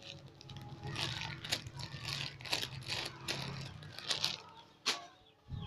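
Plastic packaging crinkling and rustling in irregular bursts as a squishy is handled, over a low steady hum that stops a little under four seconds in.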